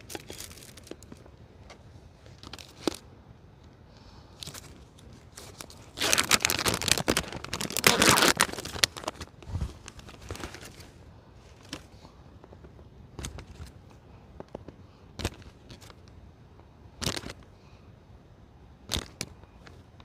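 Crinkly rustling and tearing of packaging, loudest for about three seconds starting six seconds in, with scattered light clicks and knocks around it.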